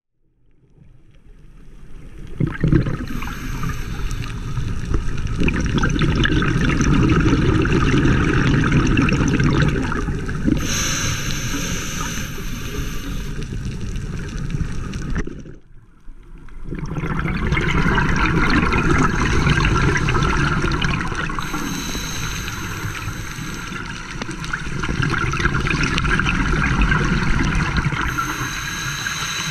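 Scuba diver breathing through a regulator underwater: hissing inhalations alternating with long rushes of exhaled bubbles in a slow, repeating cycle. The sound fades in over the first couple of seconds.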